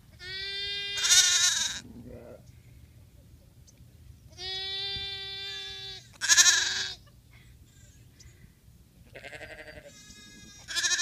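Newborn lamb bleating, several loud calls a few seconds apart, some held steady and one quavering.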